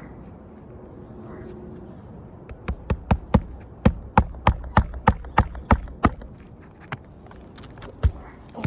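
Hammer driving roofing nails into asphalt shingles: a quick, even run of about a dozen sharp blows, roughly three a second, then one more blow near the end.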